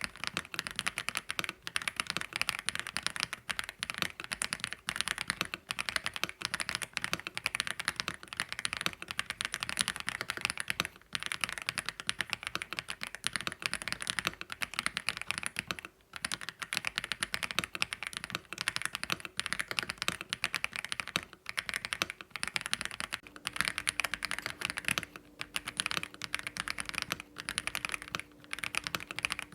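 Rapid, continuous typing on an AULA F87 Pro mechanical keyboard fitted with LEOBOG Graywood linear switches (POM stems) on a polycarbonate plate, keystrokes clattering in quick runs with a few brief pauses.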